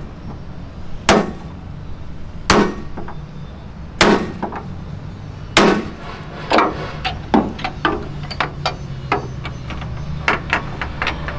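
Sledgehammer striking a rivet snap held on a red-hot rivet, heading the rivet into a steel truck chassis frame. Four heavy metallic blows come about a second and a half apart, then lighter, quicker taps and clinks.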